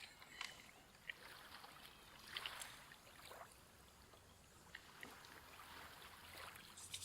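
Near silence with a faint wash of gentle sea waves, swelling softly a couple of times, and a few faint clicks.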